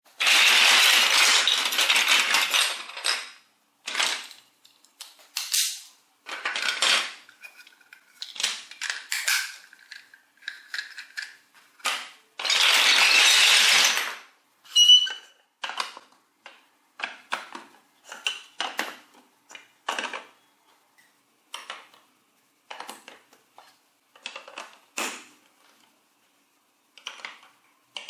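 Large plastic toy building blocks clattering against each other as a heap of them is moved, in a long rattle at the start and again about halfway through. In between and afterwards come scattered single clicks and knocks as blocks are picked up, set down and pressed together onto their studs.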